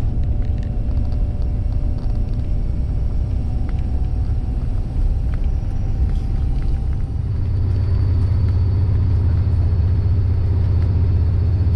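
Steady low engine rumble with a faint hum above it, growing louder about seven and a half seconds in.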